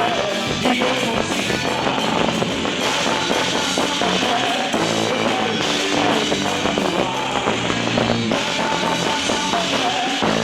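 Loud band music for the quadrilha junina dance, with drums and guitar keeping a steady beat under a short repeating melody.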